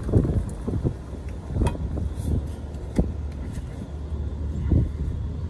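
Low rumble that comes and goes, with a few sharp metal clicks as a new U-joint is fitted into a truck driveshaft yoke.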